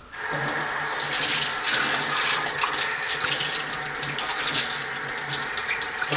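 Kitchen faucet turned on about a third of a second in, then water running steadily from the tap into a nonstick frying pan held under the stream, splashing as the pan is rinsed.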